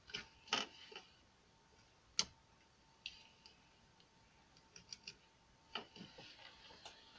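Light, irregular clicks and taps of a motorcycle digital speedometer's plastic housing and circuit board being handled, about a dozen separate sharp clicks with the sharpest about two seconds in.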